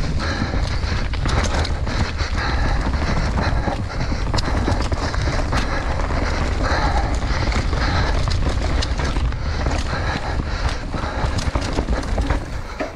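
Mountain bike ridden fast down a rooty dirt trail: steady wind rumble on the bike-mounted camera's microphone, with tyres on dirt and the chain and frame rattling and knocking over bumps, and the rider's heavy breathing at intervals.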